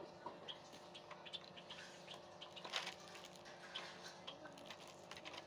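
Faint scattered clicks and light rustles of a packaging box being opened by hand, a few slightly louder knocks near the middle.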